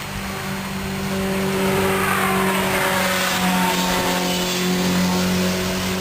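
A car engine running as the vehicle goes by, growing louder about a second in, holding steady, then dropping away near the end.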